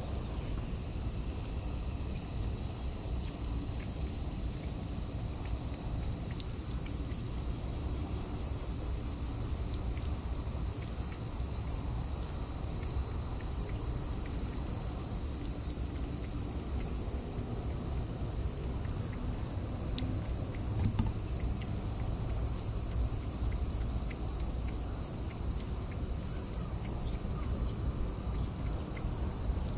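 A cat lapping at a thin trickle of running water, with faint wet ticks under a steady high-pitched insect drone. The drone shifts pitch twice, and a low rumble runs underneath.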